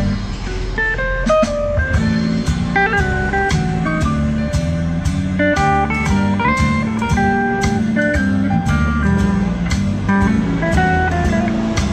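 Instrumental music: a guitar melody over a steady bass line and beat.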